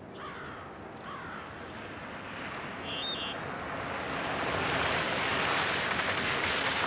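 A car approaching along a wet country road, its tyre and engine noise swelling steadily louder as it nears. Birds call briefly a few times in the first few seconds.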